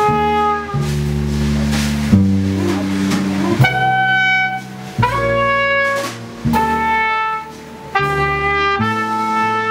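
Live jazz: a trumpet playing a phrase of long held notes over piano chords and double bass.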